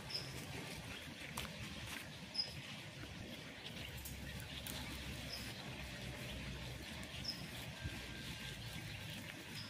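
A small bird gives short high chirps, one every two to three seconds, over a quiet outdoor background. Soft scattered clicks and rustles run beneath it.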